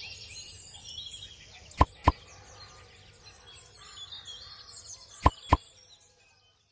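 Birdsong ambience of steady chirping, broken by two pairs of short sharp pops, about two seconds in and again just past five seconds. The birdsong fades away near the end.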